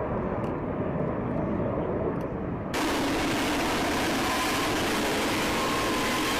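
Aircraft engine noise, a low rumble. A little under three seconds in it cuts off abruptly to a steady, even rushing noise with a faint whine.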